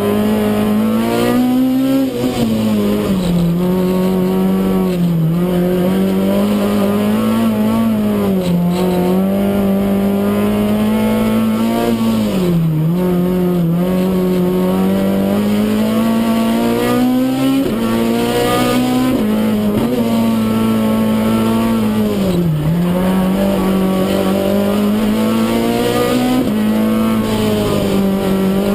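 Renault Clio Kit Car's four-cylinder racing engine heard from inside the cockpit, running hard at high revs under load. Its note climbs and then drops sharply several times as the car is driven flat out up the climb.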